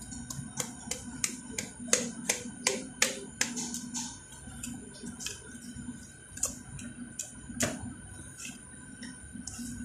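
Knife cutting through a grouper's bones and cartilage behind the head: a run of sharp, irregular clicks and cracks, dense for about the first four seconds and sparser after, over a steady low hum.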